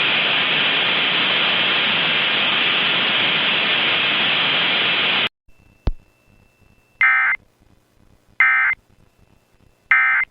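Loud steady static hiss that cuts off suddenly about five seconds in. A single click follows, then three short buzzy data bursts about a second and a half apart: the Emergency Alert System end-of-message tones.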